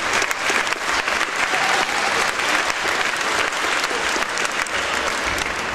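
Audience applauding: dense, steady clapping of a large crowd in a concert hall.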